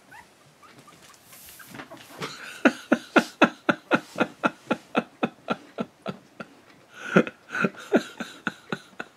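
Akita puppies about twelve days old crying in a rapid run of short squeaky yelps, about four a second, starting about two seconds in, with a second burst near the end.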